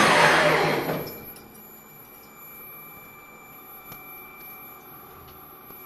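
A machining centre's spindle and coolant spray die away about a second in, the pitch falling as the spindle spins down at the end of a drilling cycle. After that the machine sits quiet, with a steady high electrical whine and a few faint clicks.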